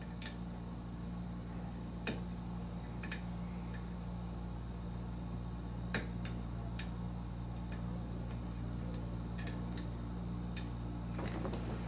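Lock pick working the pin stack of an American 5200 series padlock during single-pin picking: scattered light metallic clicks at irregular intervals, with a quick cluster near the end, over a steady low hum. The picker takes the result to be an overset pin.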